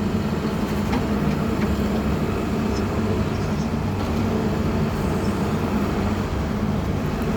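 A vehicle engine running steadily at an even speed, a low constant hum.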